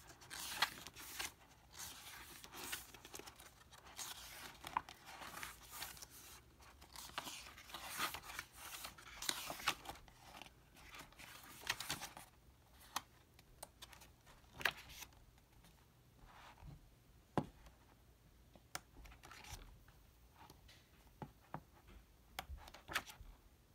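Pages of a glossy photo booklet being turned and handled by hand: faint, irregular paper rustles and swishes, busier in the first half and thinning to scattered soft clicks later.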